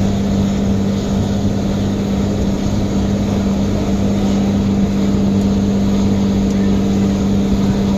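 A loud, steady machine hum: one constant low-pitched drone over a rumble, with no change in pitch or level.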